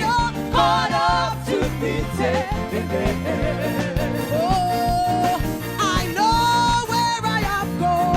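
Gospel song with a singing voice over a band with a steady bass line and beat, with long held notes.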